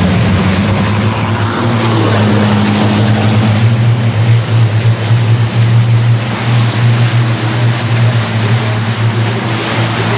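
Several racing trucks' diesel engines running hard at speed as the pack goes by, a loud steady engine note with a brief rise in pitch about two seconds in.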